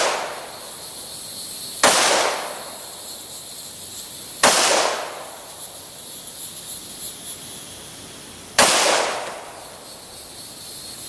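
Glock 21 .45 ACP pistol fired three times at a slow, uneven pace, each shot sharp and followed by about a second of echo.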